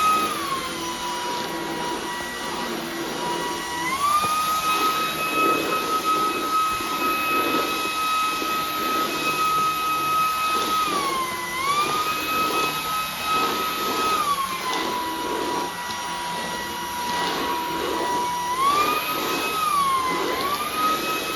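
Vacuum cleaner motor running with a steady high whine that shifts between a lower and a higher pitch several times, rising at about 4 s, dipping and recovering around 11 s, and falling at about 15 s.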